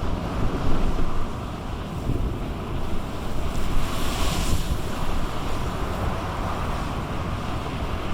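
Gale-force wind buffeting the microphone with a heavy low rumble, over surf from waves washing over a seafront promenade. A hissing rush of water swells and fades about four seconds in.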